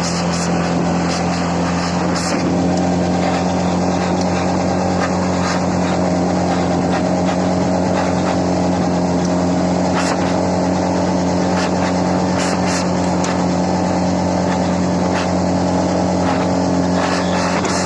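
CFMoto 520L ATV's single-cylinder engine running at a steady speed while riding, its pitch holding even, with occasional short clicks.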